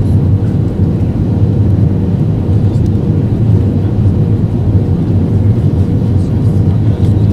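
Airbus A320 cabin noise on final approach: a steady, loud low rumble of engines and airflow, with a faint steady hum above it.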